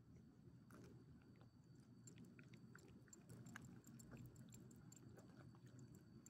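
Small dog faintly chewing and licking rotisserie chicken from a person's palm, a string of small clicks and smacks.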